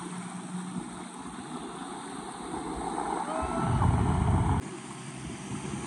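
Outboard motor on a small jon boat running as it tows a person through the water, with water wash and wind on the microphone. A louder rushing stretch about three and a half seconds in cuts off suddenly about a second later.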